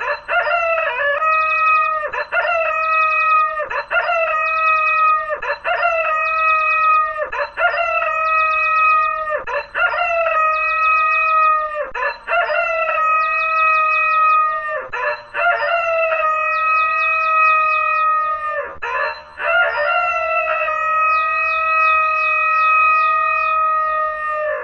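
A sampled rooster crow, cut up and stretched by granular processing. The same crow repeats about every two seconds, each repeat drawn out longer toward the end, with a fine high rattle between repeats.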